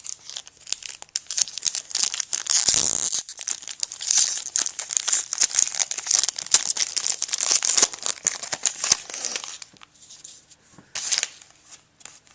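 A baseball card pack's wrapper being torn open and crumpled, a dense crinkling for about ten seconds, then a short crinkle near the end.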